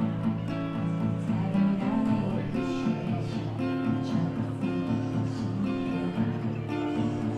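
Acoustic guitar playing strummed chords in an instrumental passage of a pop song, with no voice.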